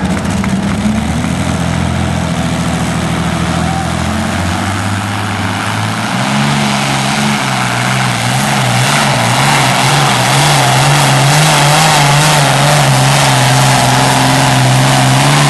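Pulling tractor's engine running hard under load as it drags a weight-transfer sled. Its pitch steps up about six seconds in, then holds high and gets louder.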